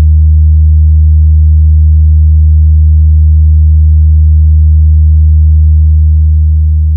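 A loud, steady deep bass sine tone with no beat, the 'speaker check' vibration tone of a DJ sound-testing remix, made to shake the speakers. It fades slightly near the end.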